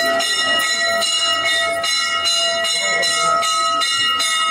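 A metal puja bell rung continuously during worship, struck about three times a second so that its bright ringing tone never dies away.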